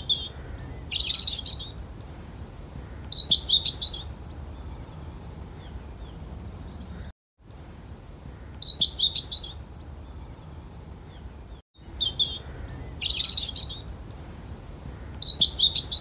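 Songbird chirping and twittering in short phrases of high thin notes, a falling whistle and quick trills, the same kind of phrase coming back every few seconds over a low steady rumble. The sound cuts out briefly twice.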